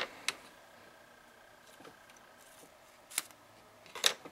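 A few brief, sharp clicks from handling tools and grosgrain webbing at a sewing table: one near the start, a louder one about three seconds in, and a quick cluster just after four seconds, with quiet room tone between.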